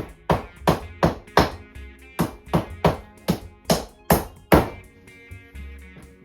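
A hammer tapping small nails into wooden beehive frames: about a dozen quick, evenly spaced strikes, nearly three a second, that stop about four and a half seconds in. Background music with steady tones plays under them.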